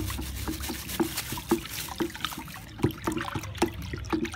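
Water being stirred vigorously in a bucket with a wooden stick, sloshing, with quick irregular knocks of the stick, several a second, as nitrosol (CMC) thickener powder is poured in; the fast stirring keeps the powder from caking into lumps.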